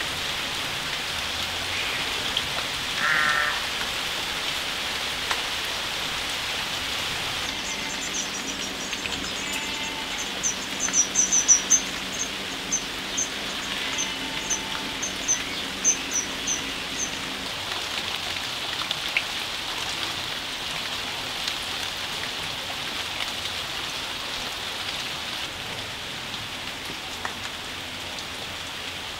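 Steady rain falling on garden plants and leaves. Through the middle, a small bird gives a run of high, quick chirps, about two a second, and a brief wavering call sounds about three seconds in.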